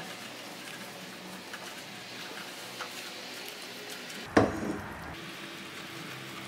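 Sugar melting into caramel in a nonstick saucepan, sizzling softly while a silicone spatula stirs it; the sugar is just starting to turn brown. One sudden short knock about four and a half seconds in.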